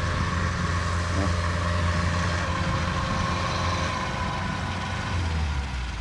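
Kubota DC93 combine harvester running steadily, a continuous engine drone with a steady whine on top. The engine note drops slightly about five seconds in.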